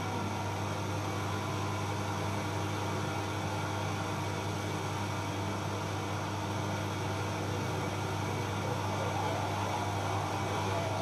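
Live electronic noise performance: a dense, steady drone of hiss and hum with a strong low rumble. A held tone drops away at the start, and wavering tones rise out of the noise near the end.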